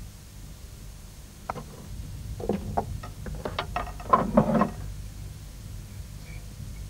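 A run of irregular knocks and taps, sparse at first and then bunched into a quick cluster, with a short ringing tail on the strongest ones.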